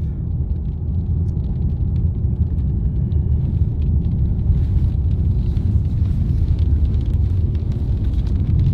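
Steady low rumble of a car being driven, heard from inside the cabin.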